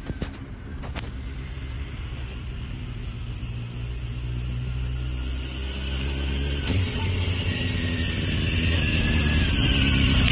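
Honda CBR sport motorcycle's engine running as the bike rides toward the listener, a steady low hum that grows louder toward the end, with a change in the engine note about two-thirds of the way through.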